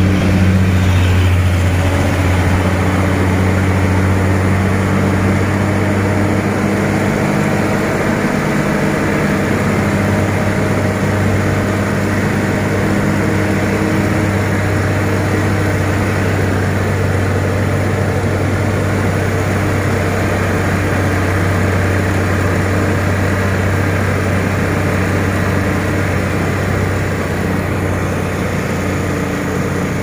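Hino heavy truck's diesel engine running with a steady low drone.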